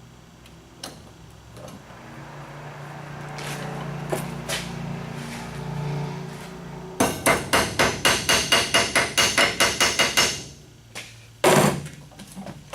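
Hammer striking a steel piece clamped in a vise to bend it sharply. A fast run of ringing blows, about five a second for three or four seconds, comes after some quieter handling noise, and one more heavy blow follows.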